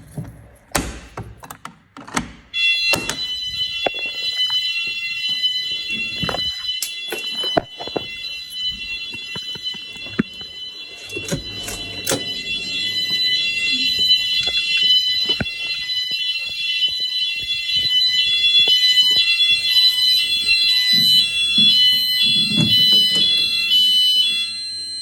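Hotel fire alarm sounders going off in a test: several high electronic tones at once with a fast repeating pattern. They start about two and a half seconds in and cut off just before the end, after a few sharp knocks.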